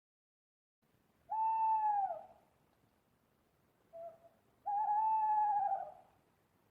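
Owl hooting: a long hoot that drops in pitch at its end, a short lower note, then a second long hoot with a slight waver.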